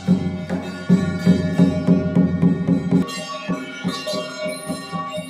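Music: a steady beat of drum strokes, about three a second, over sustained pitched tones. About three seconds in, the beat thins out and higher tones come to the fore.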